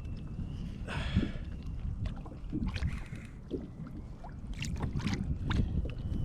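Wind buffeting the microphone over water lapping and splashing, with a few short knocks and clicks scattered through.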